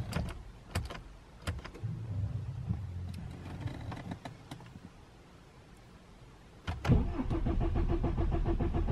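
BMW E60 diesel engine turning over on the starter and then catching about seven seconds in, going straight into a steady idle. This is the first start after a fuel filter change, with the new filter just primed by cycling the ignition.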